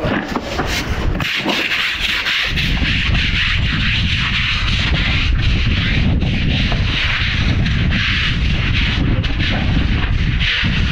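Drain jetter's high-pressure lance spraying water over wet paving slabs, a steady loud hiss, with wind rumbling on the microphone underneath.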